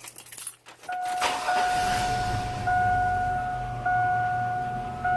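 A pickup truck's engine being started with the key: a few clicks, the engine catching about a second in, then idling. Over the idle a dashboard warning chime dings about every 1.2 seconds, and there is no turn-signal relay clicking.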